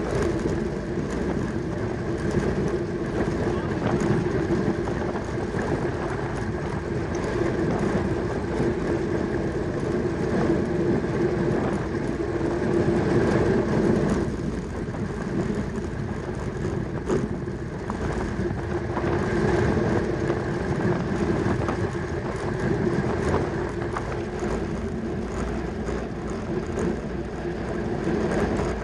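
Steady rush of wind with the rolling hum of a track bicycle at race speed, running on without a break.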